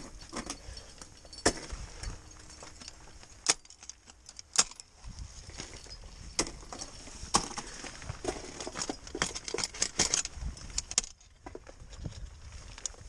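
Metal climbing gear on a harness, carabiners and quickdraws, clinking and jangling irregularly as the climber moves, with a number of sharper single clacks scattered through it.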